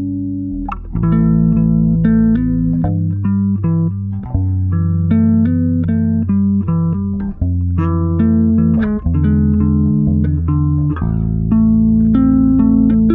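Instrumental music: a held chord fades, and about a second in a plucked-string melody of short notes starts over a sustained bass line.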